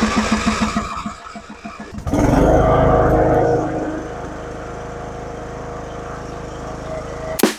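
Craftsman lawnmower's small engine starting after top-end repairs. It chugs in quick uneven pulses for about two seconds, then catches and runs loud and hard. From about four seconds in it settles into a steady run.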